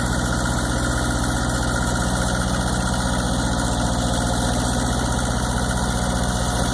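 Tractor engine running steadily with an even, fast firing pulse as it pulls a plow through a sweet potato row.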